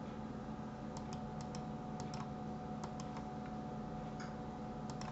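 Light clicks of a computer keyboard and mouse, about a dozen at irregular intervals, over a steady low electrical hum.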